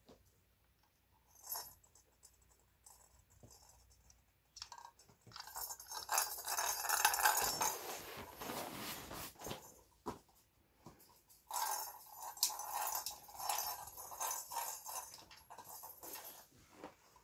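Plastic wobbling tumbler cat toy rocking, with the ball inside rattling and clattering against the shell in two long spells, the first starting about five seconds in and the second about twelve seconds in.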